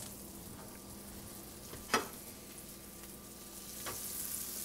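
Butter sizzling and foaming as it melts in a hot nonstick frying pan, a steady hiss with a few faint pops and one sharper click about two seconds in. The sizzle gets a little louder near the end.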